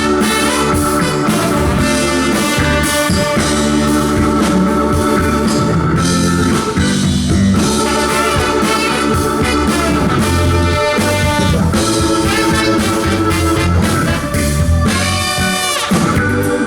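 Funk band playing live at full volume, with horns over drums, bass and guitar, as a sound-check run-through of a song.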